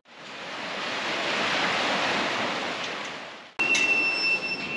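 River water rushing over a concrete weir, a steady churning rush that fades in and fades out again. About three and a half seconds in, it cuts off abruptly and gives way to other outdoor sound, with a steady high tone held for about a second.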